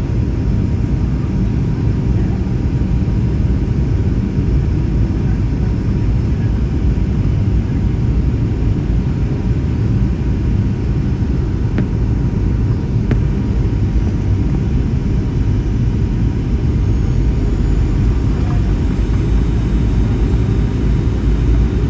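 Boeing 737 airliner heard from inside the cabin: a steady, even low rumble of engines and airflow that neither rises nor falls, with a faint steady hum above it and two faint clicks near the middle.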